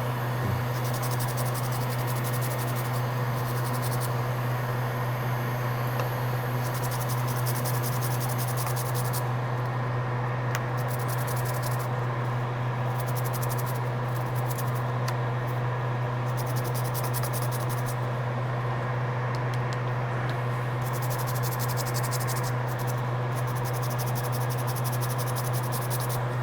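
Steady low electrical hum with a faint, fast high-pitched buzz that comes and goes.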